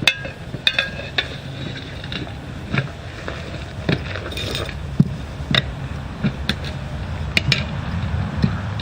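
Scattered metallic clinks and knocks, about ten over several seconds, from tools and a steel wheel rim being handled during tire removal, over a steady low hum.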